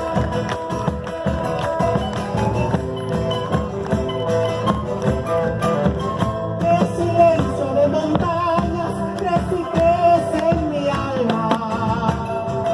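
Live Argentine folk band playing an instrumental passage: a sliding melody line over chords and a steady percussion beat.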